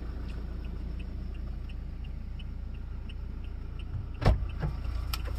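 Car engine idling, heard from inside the cabin, under a light steady ticking about three times a second. A sharp knock comes a little after four seconds in, followed by a few smaller clicks.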